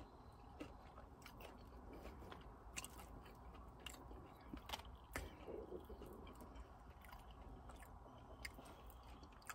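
Faint chewing and mouth sounds of someone eating a breaded fried mozzarella stick, with scattered soft clicks.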